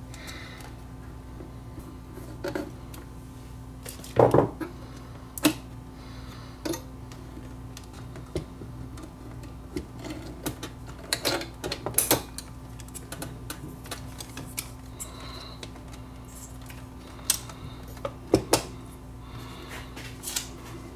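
Irregular clicks, taps and clattering knocks of small plastic and metal parts being handled as the Technics SL5200 turntable's mechanism is taken apart, with the large cam gear lifted off. The louder knocks come about four, five, twelve and eighteen seconds in, over a low steady hum.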